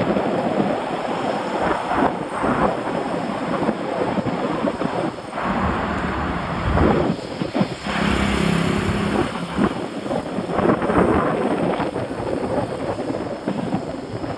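Wind buffeting the microphone of a camera carried along on a moving bicycle: a loud, gusting rush that rises and falls throughout. A short low hum is heard about six seconds in.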